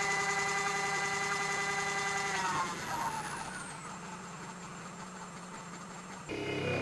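Nespresso Vertuo Pop capsule machine spinning the capsule to brew, a steady motor whine that winds down with a falling pitch about two and a half seconds in. A different sound cuts in abruptly near the end.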